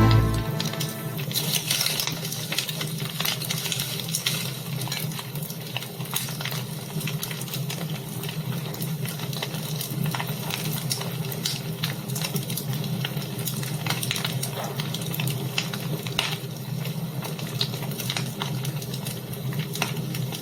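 Fire burning in a fireplace, crackling with many small irregular pops over a steady hiss and low rumble.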